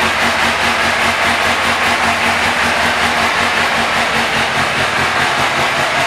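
2001 Suzuki GSX-R750's inline-four engine idling steadily.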